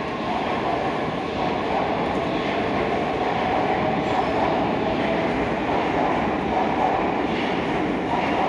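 Steady rumble and hum of a metro train at a station platform. It grows slightly louder after about three seconds.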